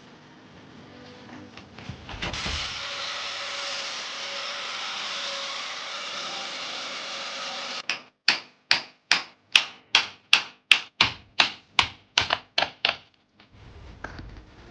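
Woodworking by hand: a steady rushing noise for about five seconds, then a run of sharp, evenly spaced knocks, about three a second, like a hammer driving a nail into wood.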